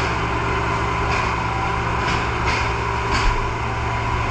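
Fire truck engine running steadily, with several short bursts of hiss along the way.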